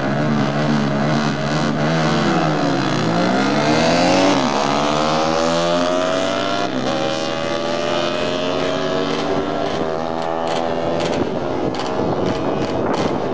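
Two racing motorcycles, a 1978 Honda CB125T twin and a methanol-fuelled Honda CB250RS single, revving on the start line and then launching, their engines rising in pitch through several gear changes as they pull away and fade into the distance. The CB125T is not running quite right, from a failing head gasket.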